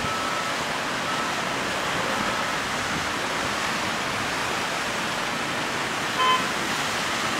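Cars driving through a flooded street, their tyres spraying water, with a steady rushing hiss. A short car horn beep sounds about six seconds in.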